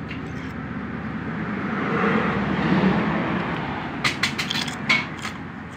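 A passing road vehicle swells and fades, loudest about two to three seconds in. About four seconds in, a metal spoon and fork clink against the plate several times in quick succession.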